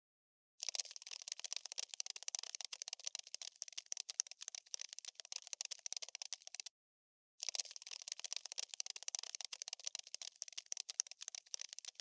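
Cockroach scuttling sound effect: rapid, dry skittering clicks and scratches with no low end. It starts about half a second in, breaks off for under a second a little past the middle, then carries on.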